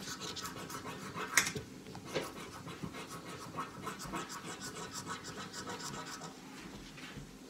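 Lottery scratch-off ticket being scratched with a small metal tool: a quick run of short scraping strokes, several a second, with a sharper scrape about a second and a half in. The scratching eases off near the end.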